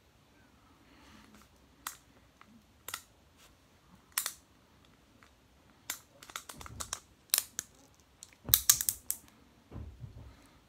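Hard plastic clicking and tapping from a 2002 Mattel Skeletor action figure as it is handled and posed, its arm and axe moved about: scattered sharp clicks that come faster later on, with a quick flurry and a soft thump near the end.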